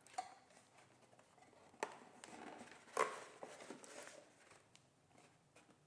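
Paper and cardboard watch packaging being handled: faint rustling with three short sharp taps, the loudest about three seconds in.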